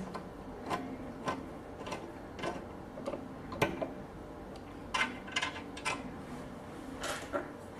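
Light, irregular metallic clicks and taps of a cutter being fitted by hand onto a multifunction key-duplicating machine.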